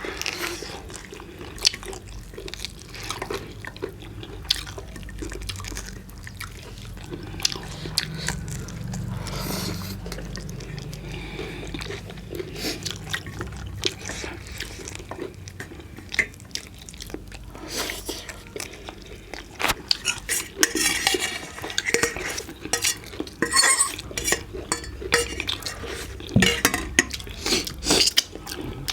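Plates and cutlery clinking and scraping during a meal: many short sharp clatters, coming thicker in the second half.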